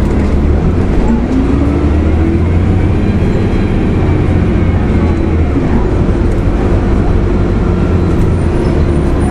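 Cummins ISL diesel engine of a 2004 Gillig Phantom transit bus running with a steady low drone. About a second in, a tone rises in pitch over a second or so, then the sound holds steady.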